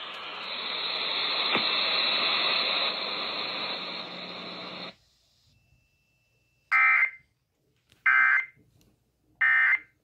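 A Sparc HD Radio's speaker gives a steady hiss of static for about five seconds, which cuts off sharply. Then come three short, harsh data bursts about a second and a half apart: the Emergency Alert System end-of-message code that closes the test broadcast.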